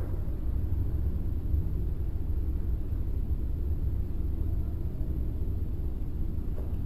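Steady low rumble with no distinct events, and a faint thin high whine above it.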